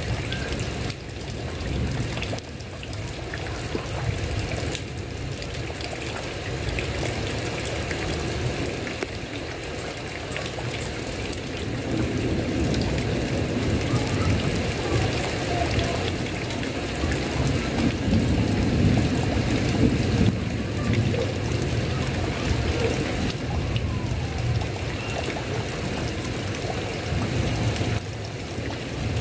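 Steady rain falling on a tile roof, with a low rumble underneath that swells in the middle.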